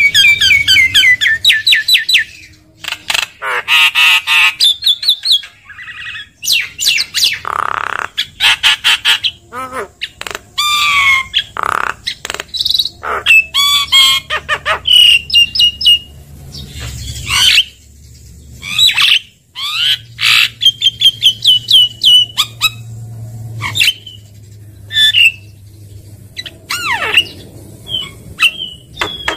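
Javan myna (jalak kebo) singing and calling. It opens with a quick run of repeated chirps, then a varied jumble of whistles, trills, harsh squawks and short clicks in quick succession.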